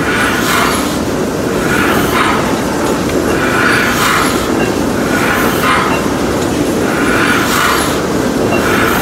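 Running gear of an 1898 Beyer Peacock 4-4-0 steam locomotive turning in place, its driving wheels and coupling rods in motion. A steady mechanical running noise is overlaid by a hiss that swells and fades about every second and three-quarters.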